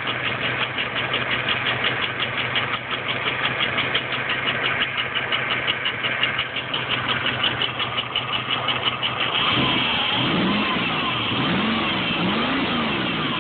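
GM 3.4-litre V6 idling with a continuous, rapid, even knock-tick, which the owner cannot place between a rod knock and a rocker-arm or pushrod tick and hopes is a pushrod. About nine and a half seconds in, a sound that rises and falls in pitch several times joins in and the ticking becomes less distinct.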